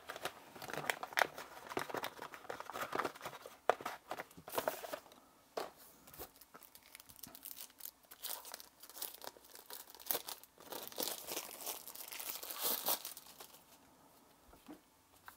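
Packaging crinkling and tearing as it is handled and pulled open, in irregular crackles, with a denser stretch of rustling near the end.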